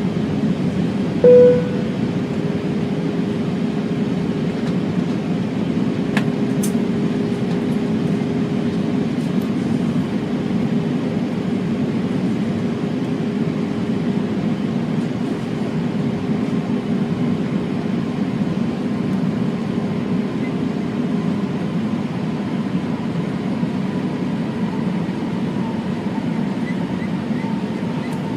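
Steady cockpit noise of an airliner, a low rumble with a faint steady hum. A short beep sounds about a second in.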